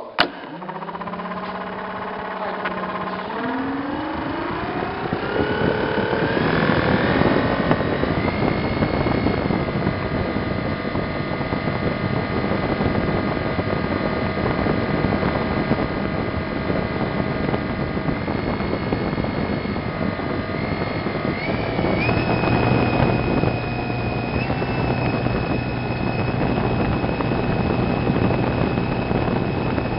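A small motor spinning a propeller. Its whine rises steadily over the first eight seconds or so as it spins up, then holds steady over the rush of air from the propeller, stepping in pitch twice about two-thirds of the way through.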